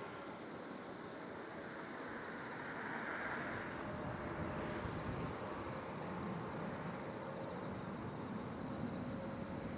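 Distant KTX-Sancheon high-speed trains on an elevated line: a steady rushing rumble.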